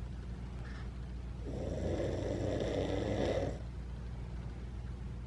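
A sleeping person snoring: one long snore starting about a second and a half in and lasting about two seconds, over a steady low hum.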